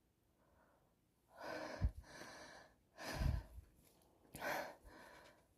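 A girl sneezing: three sharp, noisy bursts of breath through nose and mouth, about a second and a half apart, the first two with a low thud.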